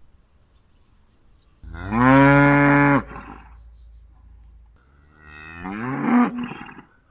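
A cow mooing twice: first a loud, steady moo of about a second and a half, then a second moo that rises in pitch and breaks off near the end.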